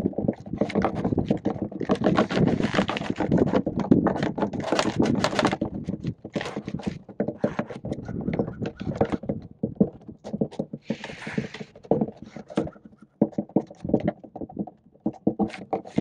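Roller chain on a homemade right-angle 'side bow' chain drive (links cut on one side so it bends around a wooden drum) clattering over a steel sprocket as the vertical axis wind turbine turns it. The irregular clicking and rattling is dense at first and thins out after about six seconds, with a short hiss about eleven seconds in.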